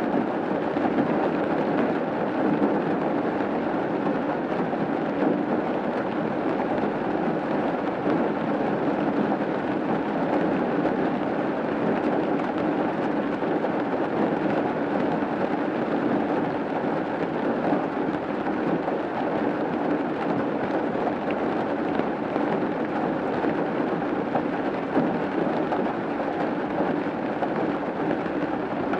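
Rain falling steadily on a roof: a dense, even wash of drops with no breaks and no single louder hits.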